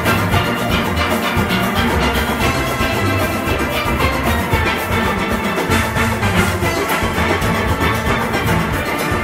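A full steel orchestra playing together: many steelpans ringing out a calypso arrangement, carried over a strong bass line from the bass pans.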